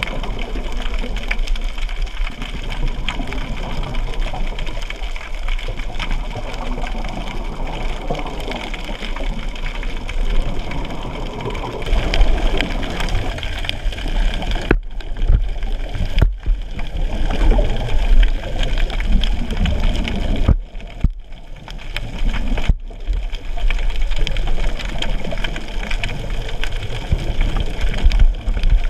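Steady underwater rushing and low rumble of water moving around a submerged camera, cutting out briefly a few times in the second half.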